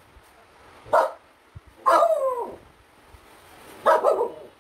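A spitz dog barking and howling three times, alarmed by a knock at the door: a short bark about a second in, a longer howl falling in pitch about two seconds in, and another bark near the end.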